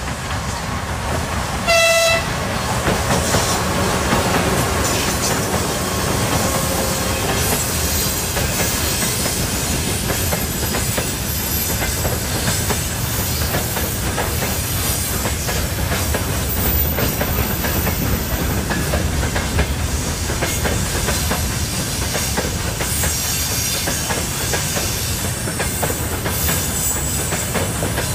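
Freight train passing behind a 2TE116 diesel locomotive: a short horn blast about two seconds in, then a long string of gondola wagons and tank cars rolling by with a steady rumble and the clickety-clack of wheels over rail joints.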